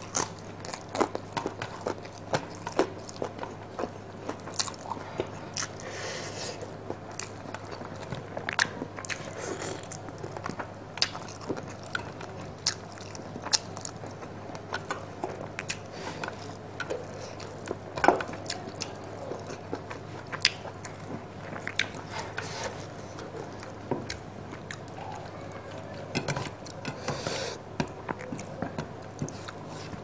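Close-miked eating: chewing and biting chicken curry and rice, with many wet mouth clicks and smacks every second and one louder click about 18 seconds in, over a steady low hum.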